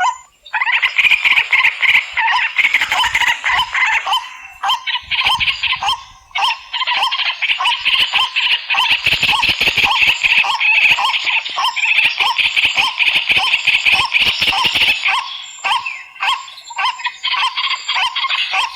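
A dense, continuous chorus of animal calls: a fast trilling layer over a lower call repeated about two to three times a second, thinning briefly a few times.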